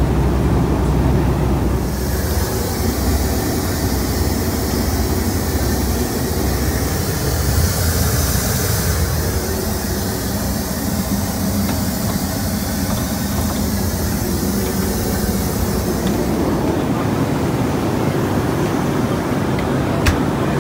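Steady rumble of airflow and engines inside the cabin of a Boeing 757-200 in flight. A hiss swells about two seconds in and eases off near the end.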